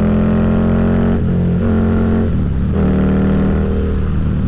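Harley-Davidson V-Rod's liquid-cooled V-twin engine running steadily at highway speed. Its note shifts and dips for a moment around two seconds in before settling back.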